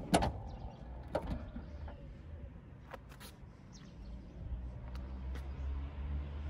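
Cupra Formentor's tailgate shutting: a loud latching thud just after the start, then another click about a second in and a couple of light clicks around three seconds. A low rumble builds toward the end.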